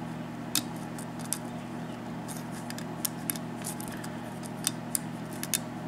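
Lock pick tapping and scraping on the serrated pins of a Russwin mortise lock cylinder during single-pin picking: a scatter of light, sharp clicks over a steady low hum.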